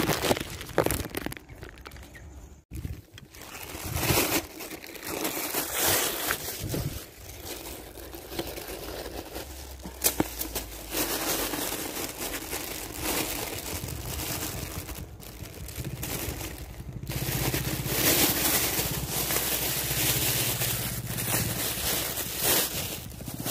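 Thin plastic bag rustling and crinkling in irregular bursts as it is handled and opened.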